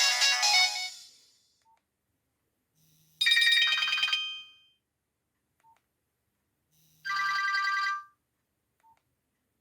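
Nokia 1280 mobile phone ringtones: the end of an electronic ringtone melody fading away, then two short electronic tone jingles about four seconds apart, each about a second long.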